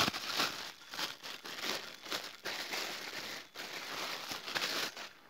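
Thin plastic bag crinkling and rustling irregularly as it is handled with gloved hands.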